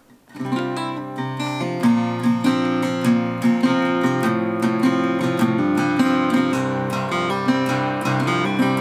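Acoustic guitar in drop C tuning playing a chord passage: notes picked in quick succession over low bass notes that ring underneath. It starts about a third of a second in.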